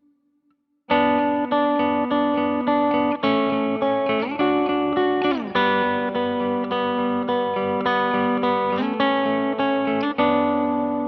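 Covenant Tradition T-SP electric guitar with humbucking pickups, played through an amp: starting about a second in, a run of picked notes and chords with a few bends or slides in the middle, ending on a chord left ringing.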